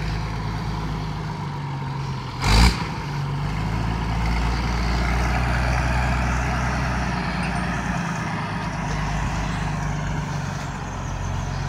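Muir Hill tractor's engine running steadily as it tows the compressor, getting a little louder a few seconds in. A short, sharp, loud noise about two and a half seconds in.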